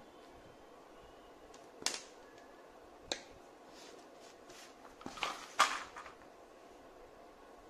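Handling noises of a spiral sketchbook and pastels on a wooden table as the sketchbook is shifted and turned. A sharp knock comes about two seconds in and another a second later, then a cluster of louder knocks and scrapes around five to six seconds, over a steady faint hiss.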